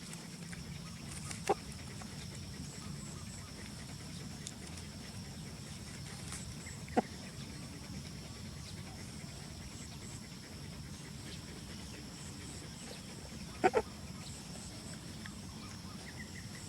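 A few brief, isolated animal calls over a steady background hiss: one about a second and a half in, one near the middle, and a quick pair near the end.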